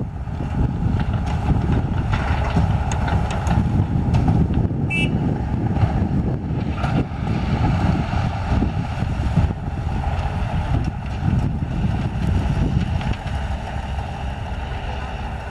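Tatra dump truck's diesel engine running with a steady low rumble.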